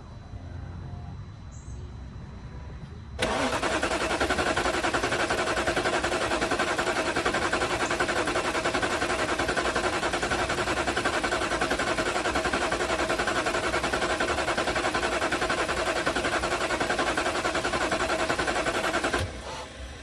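2008 BMW 550i's 4.8-litre V8 being turned over by the starter motor: steady cranking that begins about three seconds in and runs about sixteen seconds. It never catches and cuts off abruptly near the end. This is a crank-but-no-start condition that has persisted after the fuel pump, relays and fuses were replaced.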